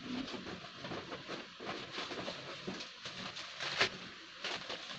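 Hands rummaging for a small part of a laptop cooling pad: irregular rustling and small clicks, loudest about four seconds in.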